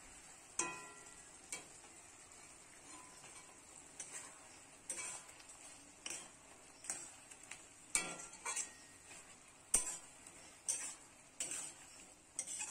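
Metal spatula stirring thick star fruit pickle in a metal kadai: irregular clinks and scrapes against the pan, about one every second, a few of them ringing briefly.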